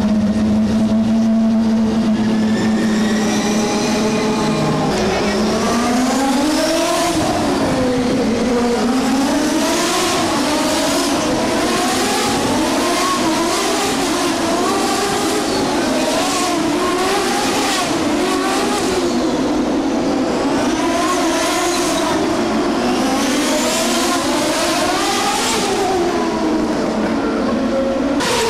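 IndyCar race car engines at speed. For the first few seconds there is a steady engine drone. From about five seconds in the engine pitch rises and falls again and again as the cars accelerate, brake and go by.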